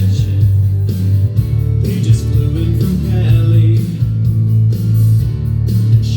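Recorded guitar music playing, with a strong steady bass line.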